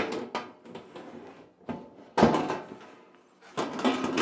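Sheet-metal back panel of a steel cabinet being slid down into the side panels' slots: scraping and several metallic knocks and clunks, the loudest about two seconds in.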